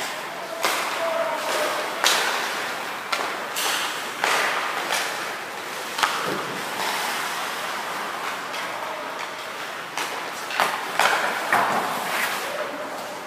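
Ice hockey skates scraping and carving on the ice in short swishes, with a few sharp cracks of sticks, pucks and boards, about four in all.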